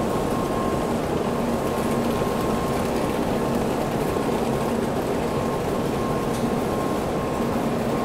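Busy bullet-train platform ambience: the steady babble and shuffle of a large crowd of passengers boarding, over the hum of an N700S Shinkansen train standing at the platform, with a faint steady tone.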